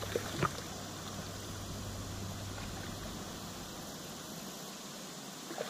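Steady hiss of shallow river water flowing over rocks, picked up by a camera sitting just above the waterline, with a low rumble underneath that drops away near the end.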